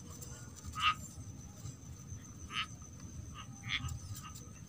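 Frogs calling in a wet rice paddy: three short croaks spaced a second or more apart, over a steady high-pitched insect drone.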